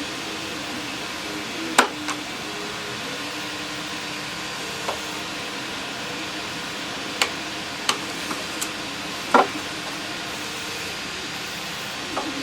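Scattered sharp metal clicks and knocks as parts of an antique cash register are handled and a front piece held by two screws is taken off. A steady hiss runs underneath.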